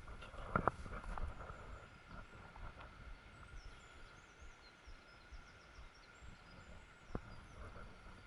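Hiker's footsteps on a mountain trail, with sharp knocks about half a second in and again near the end, over steady outdoor background noise. Faint high bird chirps come through in the middle.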